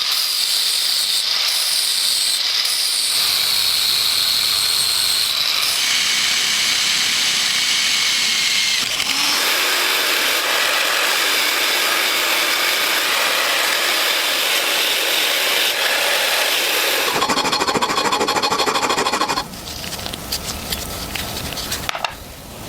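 A small power tool working on metal parts, heard in several short cuts whose pitch and texture change abruptly, with a fast pulsing stretch near the end before it drops quieter.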